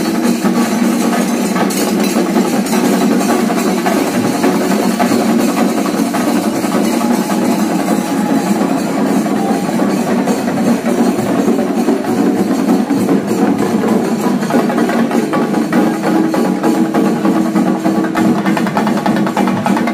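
Loud festival drumming: a percussion ensemble playing a fast, unbroken rhythm with a steady pitched tone underneath.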